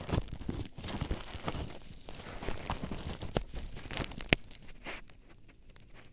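Woven plastic sack rustling and crinkling as its mouth is pulled open, with irregular clicks and knocks and one sharp louder click a little after four seconds in; the handling eases off near the end.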